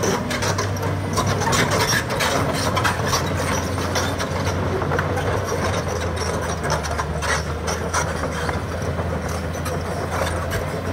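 Excavator at work: its diesel engine running steadily under a dense stream of metallic clanks and rattles.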